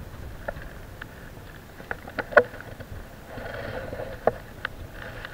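Irregular clicks and light taps of a fishing rod, spinning reel and rig being handled close by, over a steady low wash of wind and sea.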